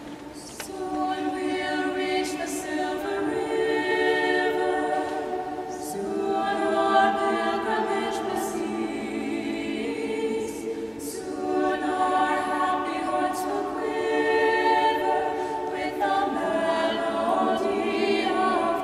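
Robed church choir singing in long, sustained phrases, with a new phrase starting about every five seconds.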